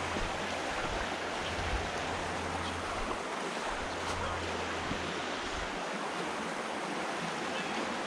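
Shallow creek rushing steadily over a rocky riffle. A low rumble on the microphone stops about six seconds in.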